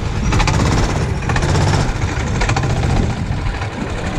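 A go-kart's small engine running close by, with a fast, even rattling beat that is strongest in the first two and a half seconds or so.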